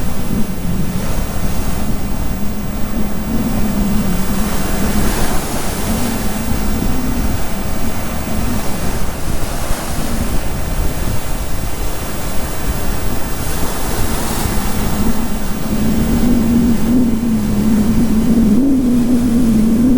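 Surf and wind buffeting the microphone, with an engine humming steadily underneath that grows louder and rises in pitch over the last few seconds.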